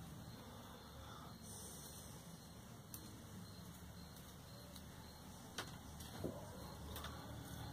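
Quiet handling noise from wiring a boxwood bonsai: a few faint sharp clicks, one about three seconds in and three more in quick succession near the end, over a low steady hum.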